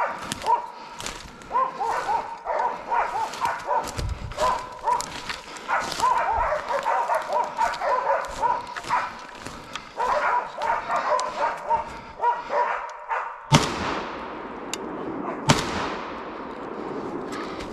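Hunting laikas barking rapidly and continuously at a bear held at bay. Then, after a brief pause, two loud gunshots about two seconds apart, each with a long echoing tail.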